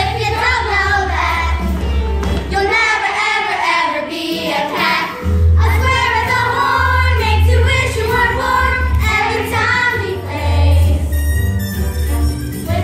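A children's chorus singing a musical number over a jazzy accompaniment with a deep bass line; the bass drops out briefly about three seconds in, then comes back.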